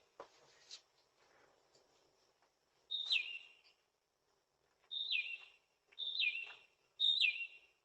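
A bird calling four times, each call a short note that slides quickly downward; the last three come about a second apart.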